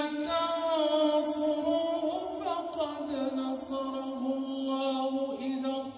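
A man's voice chanting Quranic recitation (tajweed), drawing out long melodic notes with ornamented turns in pitch. It breaks off briefly near the end and then goes on.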